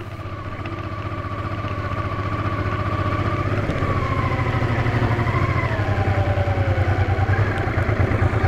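Honda Transalp 650's V-twin engine running at low revs as the motorcycle climbs a rocky track, with a steady pulsing note that grows slowly louder.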